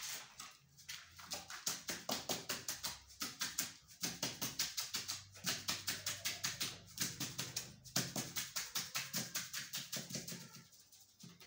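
A wooden plank tapped rapidly and evenly on wet sand-and-cement mortar, about four or five strokes a second, in three runs with short breaks.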